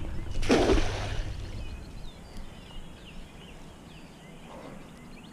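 A cast net splashing into the river about half a second in, a loud rushing burst that dies away over about a second. Birds chirp faintly afterwards.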